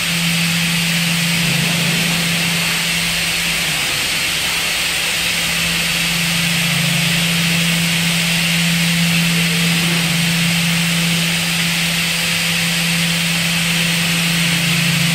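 MSK4322X16 CNC wood tenoning and grooving machine running: a steady loud hum from its spindle motors with a hiss over it, little changing throughout.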